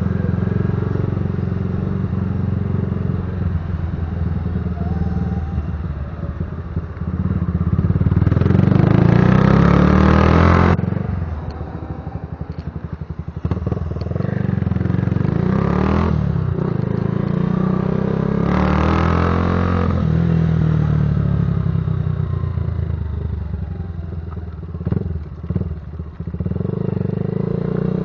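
Patagonia Eagle motorcycle's engine and exhaust rumbling while riding: the throttle opens up about seven seconds in, eases off around eleven seconds, and opens again briefly later, with a few short knocks near the end.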